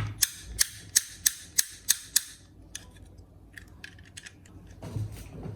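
A quick run of about eight sharp clicks, roughly three a second, then fainter scattered clicks.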